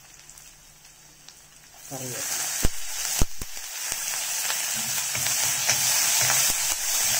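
Tempering in hot coconut oil in an iron kadai: curry leaves go into the oil with dried red chillies and shallots and start sizzling loudly about two seconds in, with a few sharp clicks soon after, and the sizzle keeps up steadily.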